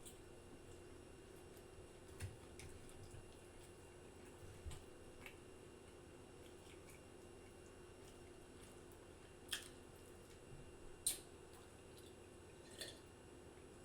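Sparse wet mouth clicks and lip smacks of someone chewing food, about five sharp clicks spread over a faint steady room hum.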